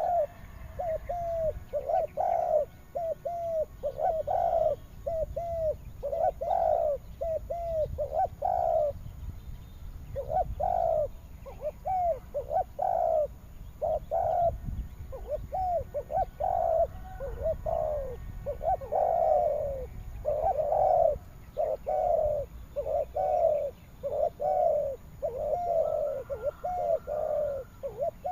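Spotted dove cooing over and over in quick, repeated phrases of low, curved notes.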